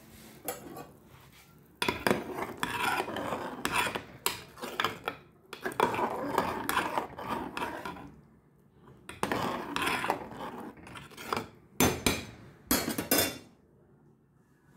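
Metal ladle stirring and scraping around the inside of a metal pot of thickened tomato sauce, with clinks against the pot. It comes in four bouts of scraping separated by short pauses.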